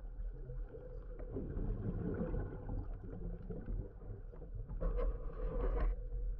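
Underwater noise picked up through a diver's camera housing: a steady low rumble with a faint hum, and a louder rush of hiss for about a second near the end.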